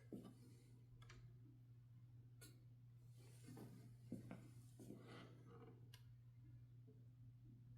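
Near silence: room tone with a steady low hum and a few faint, scattered clicks and rustles.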